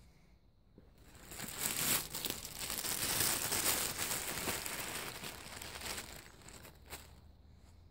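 Dry fallen leaves rustling and crackling as they are disturbed and stepped through. The sound builds up about a second in and fades away near the end.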